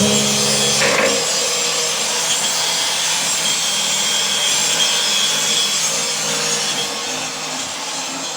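A power tool working steadily with an even, rasping abrasive noise and a faint high whine, typical of grinding or sanding on the steel bilge. Guitar music ends about a second in.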